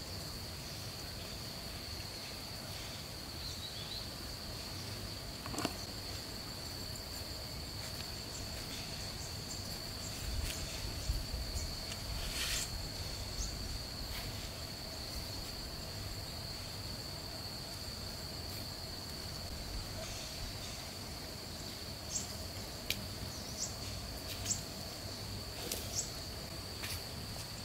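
Steady, high-pitched drone of insects, with scattered light clicks and taps over it, several of them near the end.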